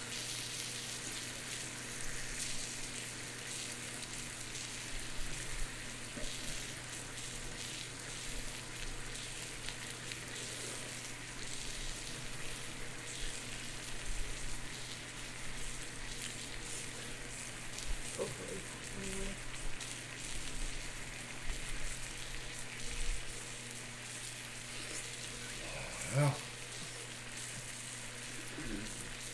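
Meat sizzling on the grill plate of an electric tabletop grill and hot pot: a steady frying hiss with small crackles, over a low steady hum.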